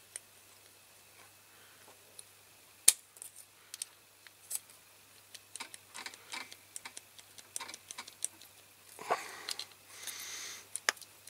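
Small sharp clicks and ticks of steel pliers gripping and working at the driver figure of a diecast toy tractor, with one sharper click about three seconds in. Near the end comes a couple of seconds of scraping and rustling.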